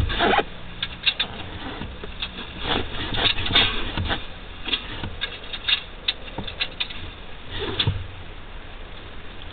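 Irregular light clicks and ticks, a few a second, with a low hum underneath.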